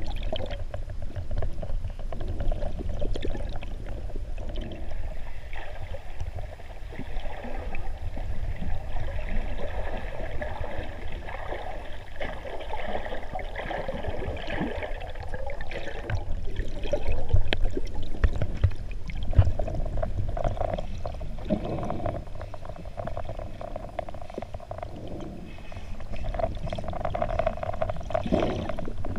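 Muffled underwater water noise, picked up by a camera filming below the surface: a steady low wash with gurgling and sloshing that swells and fades.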